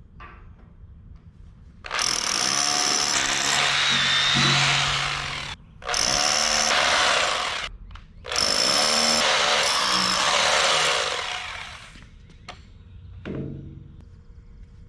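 A power drill boring anchor holes into the shop floor for a two-post lift, in three runs of a few seconds each that start and stop abruptly, with a high whine over the grinding noise.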